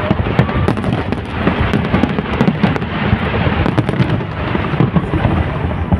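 Fireworks display going off: a dense, continuous barrage of booming bursts and crackling reports with no let-up.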